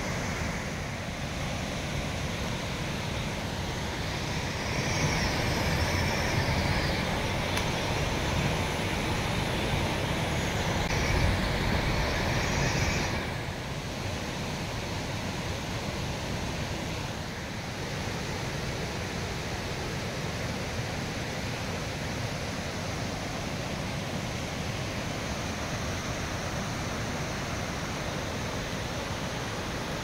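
Steady rushing of water over the cascades of Todoroki Falls, a dense hiss with no pitch. It is louder and brighter at first, then drops to a quieter, even rush about thirteen seconds in.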